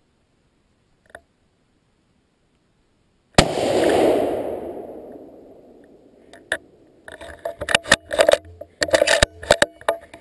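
A single sudden, very loud bang about a third of the way in, fading away over about three seconds. It is followed from about two-thirds of the way in by a run of sharp, close clattering knocks and rattles.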